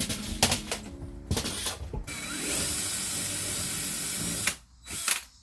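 Power drill boring out a rivet in an Airstream trailer's wall: a few knocks first, then the drill runs steadily for about two and a half seconds, stops, and gives one short burst near the end. The bit is too small, so it bores through the rivet without popping its head.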